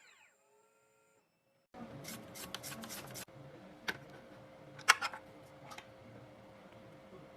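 The 2M2 Tank 2 Pro key cutting machine's spindle winding down with a falling whine as the cut ends. After a short gap, a few light clicks and knocks of handling over a faint steady hum.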